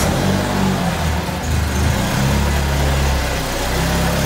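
Peugeot 205 GTI's freshly rebuilt four-cylinder petrol engine running just after starting. Its speed shifts and dips slightly about halfway through. There is no longer any odd rattle, now that a loose sheet-metal bracket that had been touching has been secured.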